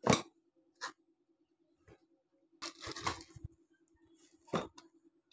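Small cardboard product boxes being set and pushed into a large cardboard carton: a few sharp knocks and scuffs of cardboard on cardboard, the loudest just after the start and a quicker cluster about three seconds in, over a faint steady hum.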